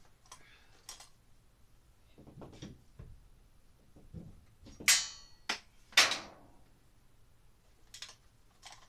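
Hammer working a metal light-fixture bracket loose from a ceiling: light taps and scrapes, then two sharp metallic clanks about a second apart near the middle, the first ringing briefly.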